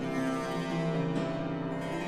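Instrumental intro music: a melody of held, pitched notes with a keyboard-like sound.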